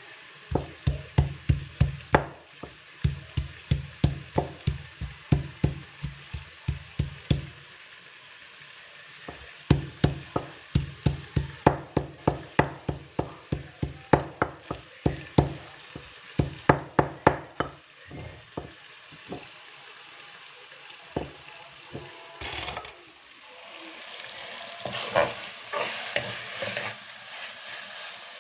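A spatula knocks against a pan about two to three times a second in two long runs as liver is stirred and fried. After that the knocks thin out, and the sizzle of the frying grows louder near the end.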